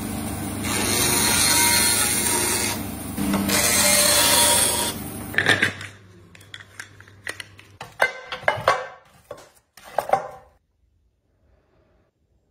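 Bandsaw cutting through a bamboo pole: two loud cutting passes over the running motor's hum in the first five seconds. Then hollow clacks and knocks of short bamboo pieces hitting each other as they are handled and bundled, stopping about ten seconds in.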